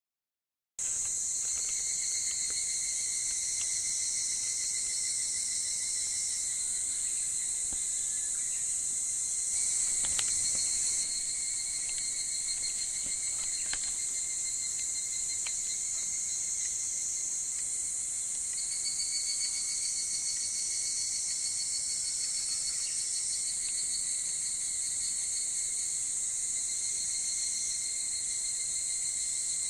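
A chorus of higurashi cicadas (Tanna japonensis) calling continuously, several overlapping high-pitched trilling calls that swell and drop as individual insects start and stop. It begins about a second in.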